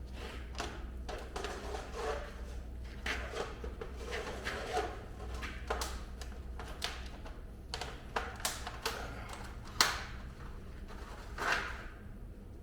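Hand tools working on a truck: irregular metallic clinks, taps and knocks, with a sharper knock about ten seconds in and another a moment later.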